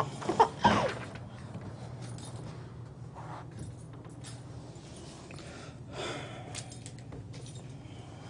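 A baby's brief vocal sounds in the first second, then a quiet room with a steady low hum and a few faint rustles.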